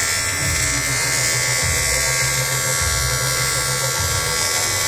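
Electric welding arc buzzing steadily as a welder lays a bead.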